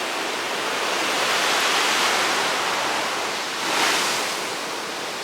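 Ocean surf breaking and rushing on the shore. The wash swells about two seconds in, and a louder wave crashes near four seconds.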